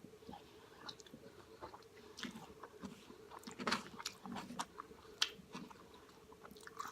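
Close-up chewing and mouth sounds: a person eating a Chipotle burrito bowl, with soft, irregular wet smacks and clicks of the mouth.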